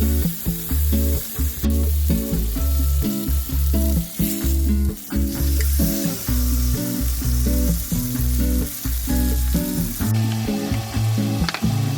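Food sizzling and frying on a hot grill plate, a steady crackling hiss, under background music with a rhythmic bass line.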